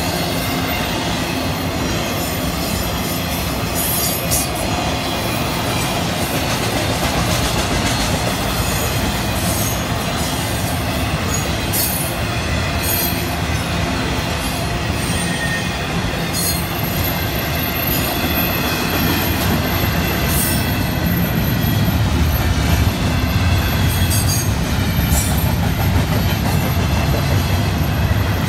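Freight cars of a Florida East Coast Railway intermodal train (trailers on flatcars, then double-stack container well cars) rolling past close by: a steady rumble of steel wheels on rail with scattered sharp clanks, growing somewhat louder over the last several seconds.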